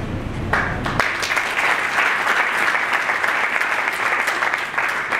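Audience applauding, a dense patter of many hands clapping that starts about half a second in and keeps going.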